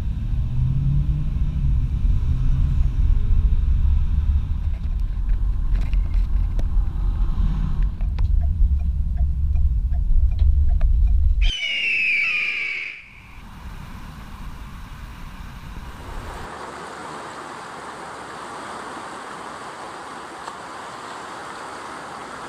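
Steady low road rumble of a car, heard from inside it while driving. It stops about halfway through, followed by a brief high, wavering sound and then a quieter steady rushing noise.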